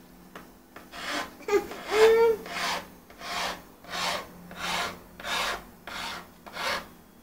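Single-cut hand file rasping along the aluminium edge of a 2010 MacBook Pro unibody casing, about ten even strokes starting a second in, rounding off the sharp edge. A short squeal sounds about two seconds in.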